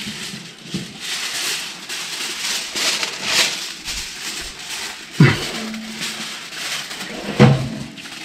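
Aluminium foil being crinkled and pressed into the bottom of a charcoal grill, a steady rustling. Twice in the second half, a short call sweeps sharply down in pitch.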